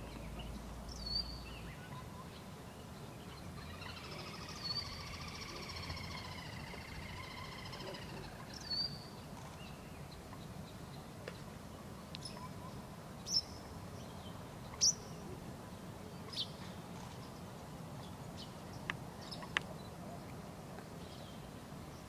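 Small birds chirping, with a warbling song a few seconds in, then several short sharp clacks spaced out over the second half, the bill-snapping of a courting grey heron.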